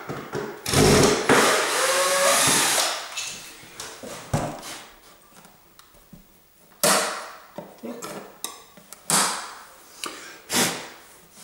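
Cordless drill-driver running in a short burst as it undoes an electrical socket's cover screws, followed by about four sharp clicks and knocks of the plastic socket frame being pried off the wall.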